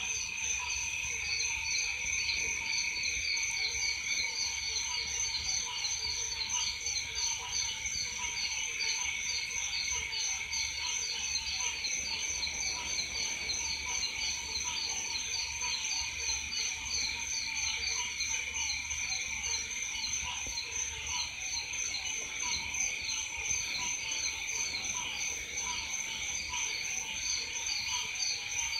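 Chorus of frogs and insects calling after rain: a steady high-pitched ringing and rapid pulsing trills, with many short overlapping lower calls repeating throughout.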